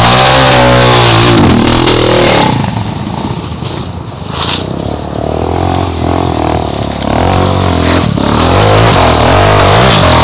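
Trail dirt bike engine revving hard on a steep dirt slope, its pitch swinging up and down. About two and a half seconds in it drops quieter for a couple of seconds, then revs loud again.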